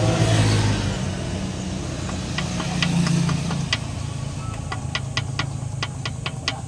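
Sharp, irregular metallic clicking that begins about two seconds in, over a low, steady engine hum.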